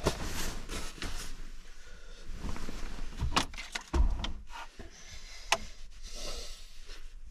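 Handling noise: scattered knocks and clicks with some rubbing and rustling. The loudest knocks come a little past three seconds, about four seconds in (with a low thud) and about five and a half seconds in.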